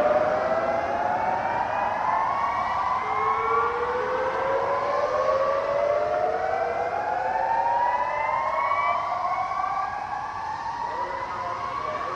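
Several Federal Signal DSA outdoor warning speaker arrays sounding the whoop tone during a weekly test: repeated rising sweeps, each a few seconds long, with the sirens slightly out of step so that their sweeps overlap.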